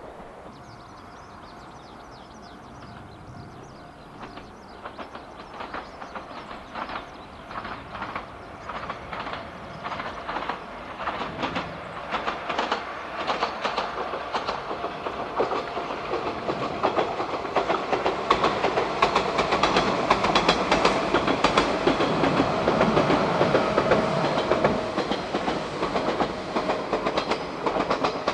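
Yoro Railway electric train approaching, its wheels clicking over the rail joints in a rhythmic clatter. The clatter grows steadily louder from about four seconds in and stays loud near the end.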